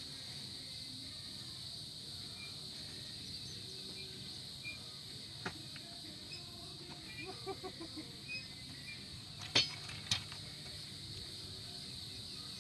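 Steady high-pitched drone of insects, with a few sharp knocks, the two loudest about a second apart near the end.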